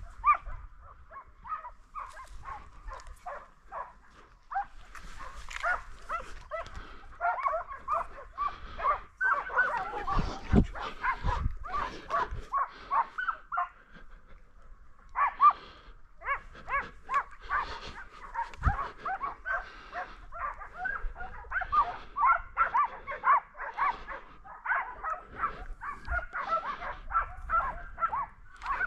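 Hunting dogs baying and yelping without a break, many quick overlapping calls, with a short pause around the middle. These are hounds giving tongue on the trail of a wild boar during a drive.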